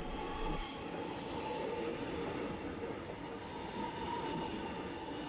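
X'Trapolis 100 electric suburban train moving away along a station platform: steady rumble of the running train with a high whine over it.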